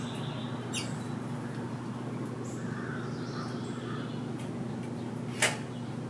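Faint bird chirps over a steady low hum, with one sharp tap about five and a half seconds in as the European starling knocks against the metal tube feeder while moving around it.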